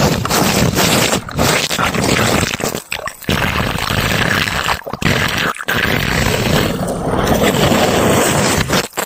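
Siphon gold-sluice suction hose drawing water and gravel from a riverbed, pebbles rattling and scraping through the pipe amid a steady rush of water. It cuts out briefly a few times.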